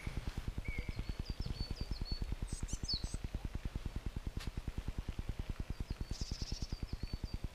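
Small birds chirping in short repeated notes over a steady low, rapid pulsing of about ten beats a second.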